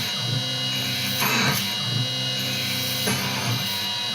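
CNC milling machine cutting D16 aluminium plate: a steady spindle whine with a noisier cutting sound that swells twice as the cutter works through the metal.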